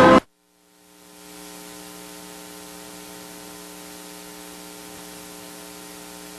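Amplified guitar stops abruptly a fraction of a second in. After a moment of dead silence, a steady electrical mains hum with hiss from the sound system fades in and holds, several low tones over a faint hiss.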